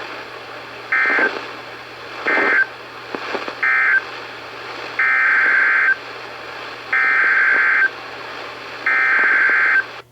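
NOAA Weather Radio SAME digital data bursts, a harsh buzzing warble, over receiver hiss. First come three short end-of-message bursts about a second apart, then three longer header bursts announcing the next alert. The sound cuts off abruptly at the end.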